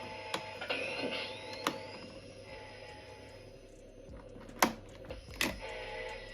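Hasbro Ghostbusters Proton Pack replica running its sound effects: a steady electronic hum with a rising whine about a second in and four sharp clicks, the loudest a little past the middle.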